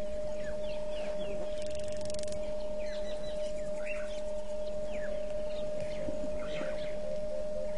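Wild birds calling with short chirps and whistles, under a steady humming tone that is the loudest thing heard. A short buzzing rattle comes about one and a half seconds in.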